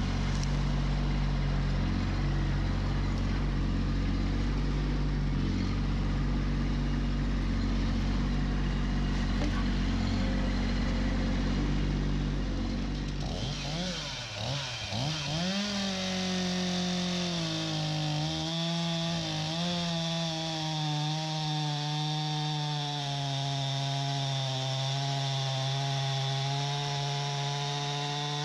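A small engine runs at a low, steady idle for about the first half. About halfway through it is revved up and down. It then runs at high speed, its pitch wavering slightly. This is a STIHL MS 251 C chainsaw taken from idle up to full throttle.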